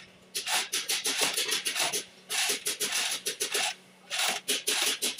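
Ratchet wrench clicking in three strokes of about a second and a half each, with short pauses between.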